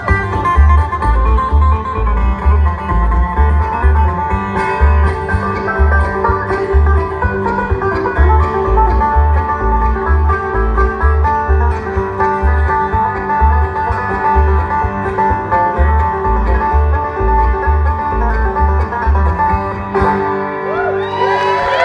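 Bluegrass band playing an instrumental break: banjo, acoustic guitar and fiddle over upright bass keeping a steady beat. Near the end the bass stops and the last notes ring out.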